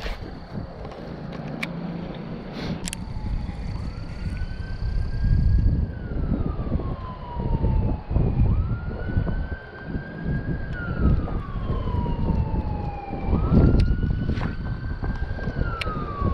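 Ambulance siren in a slow wail: the pitch climbs quickly, holds, then slides down over a few seconds. The cycle repeats three times, about five seconds apart, over wind rumbling on the microphone.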